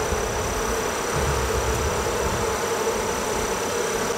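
Honeybees buzzing steadily around an opened hive as a comb frame is lifted out: an even, continuous hum.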